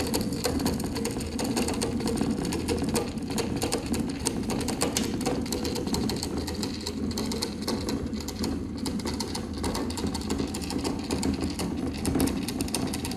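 Small desktop pen plotter (handwriting robot) running as it writes on paper: a steady motor hum with rapid fine ticking from its stepper motors.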